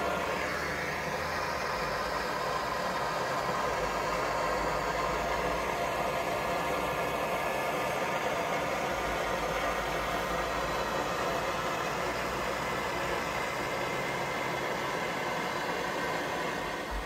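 Handheld gas torch hissing steadily as its flame scorches the face of a wooden board to darken the grain.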